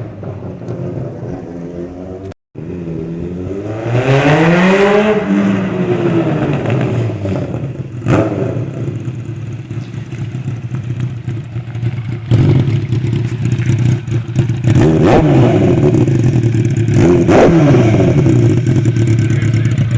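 Suzuki 600 cc motorcycle engine idling, then blipped through its exhaust. Partway in one rev rises and falls back, and a short blip follows a few seconds later. From about halfway through it runs louder, with two more quick throttle blips.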